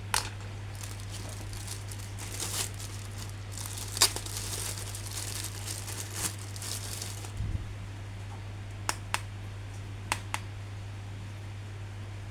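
Plastic packaging crinkling and rustling as an action figure is handled out of its box, followed by four short sharp clicks near the end, over a steady low hum.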